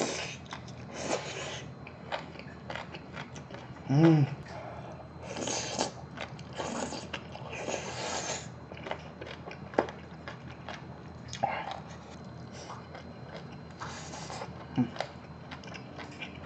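Close-up mouth sounds of a man chewing a large mouthful of spicy braised monkfish with crunchy bean sprouts and rice: wet chewing with many small smacking clicks and several short, hissy breaths. A brief hummed "mm" about four seconds in is the loudest moment.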